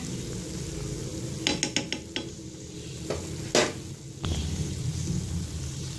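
Moong and urad dal fritters sizzling steadily as they fry in hot oil in a pan. A fork knocks against them and the pan a few times as they are turned: a quick run of clicks about a second and a half in, and one sharp click about three and a half seconds in.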